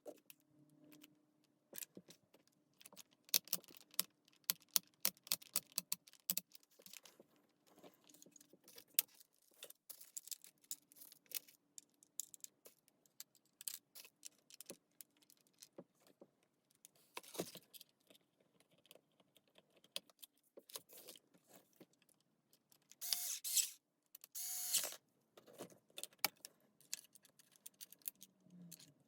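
Small metal parts and tools clicking and clinking as they are handled, with two short, louder scrapes near the end.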